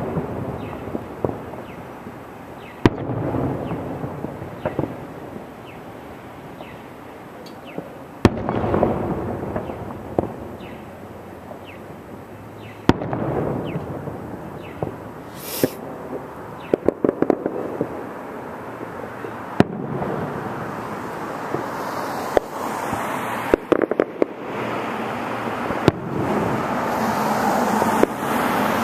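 Distant fireworks display: aerial shells bursting with sharp booms every few seconds, each trailing off in an echo, with clusters of rapid crackling between them.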